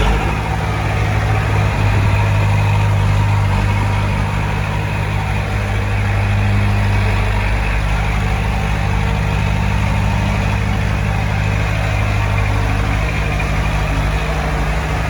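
Diesel engine of heavy earthmoving equipment running steadily at an even low pitch.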